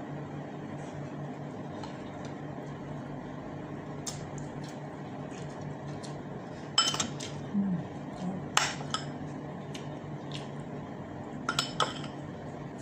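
Metal spoon clinking against a skillet and a plate several times, sharp ringing clicks loudest about seven and nine seconds in, with a quick pair near the end, over a steady low hum.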